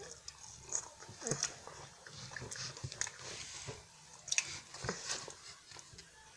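Someone biting and chewing flaky puff-pastry French Pie biscuits, with irregular crisp crunching crackles.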